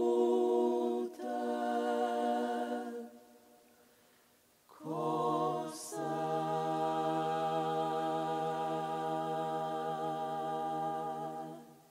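Women's klapa, a Dalmatian-style unaccompanied vocal group of six voices, singing close harmony in sustained chords. Two held chords are followed by a pause of about a second and a half, then a long chord held for about seven seconds that cuts off near the end.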